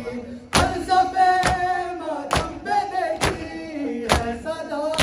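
Matam: a group of men slapping their bare chests with open hands in unison, one sharp slap a little under every second. Between the slaps, a male voice chants a noha lament in time with the beat.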